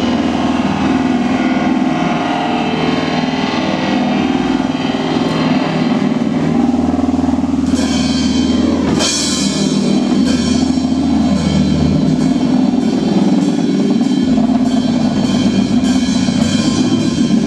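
A band playing a loose, psychedelic rock jam: drum kit with cymbals over a low bass line that moves to a new note every few seconds. The cymbals get louder about eight seconds in.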